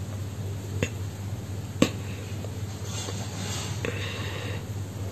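Steady low hum of background room tone, with two sharp clicks about a second apart and a faint hiss later.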